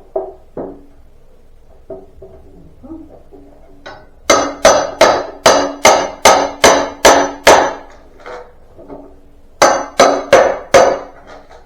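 Hammer blows knocking apart a wooden pallet: a quick run of about nine sharp, ringing strikes, then after a pause four more, with a few lighter knocks before them.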